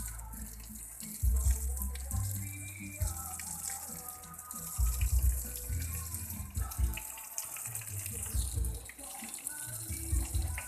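Water running and splashing steadily, with several bursts of low bumping.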